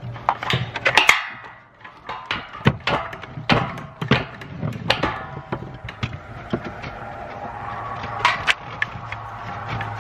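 Roof tear-off work: irregular scraping and crunching with many sharp knocks as old asphalt shingles are pried up and broken on the roof deck.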